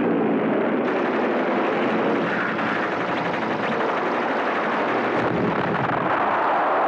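Propeller fighter plane's piston engine running in a steady drone through a dive, as a film sound effect, swelling slightly near the end.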